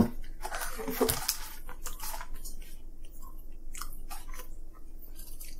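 People chewing and biting fried chicken, with scattered small wet clicks and smacks of the mouth and food.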